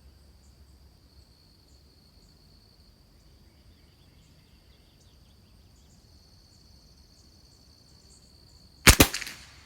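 Steady high insect buzz, then near the end a single sharp .22 LR rifle shot from a Christensen Arms Ranger, dying away within about half a second.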